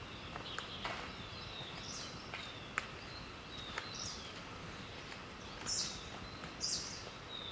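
Forest ambience of birds calling: short, high chirps that fall in pitch, repeated every half second or so, with two louder raspy calls past the middle. A steady faint high-pitched tone, such as an insect drone, runs underneath.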